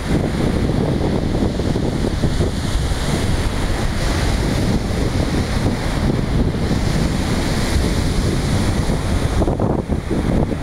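Wind buffeting the microphone with a heavy low rumble, over the steady wash of sea surf.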